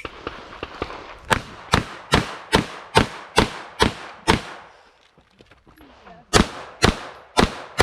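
Handgun fired in rapid strings: eight sharp shots about 0.4 s apart, a pause of about two seconds, then four more shots.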